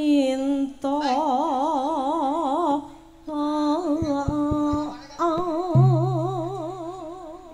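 A vocalist singing slow campursari-style phrases, holding long notes with a wide, even vibrato, in several phrases with short breaths between them. A deep sustained note sounds underneath from about six seconds in.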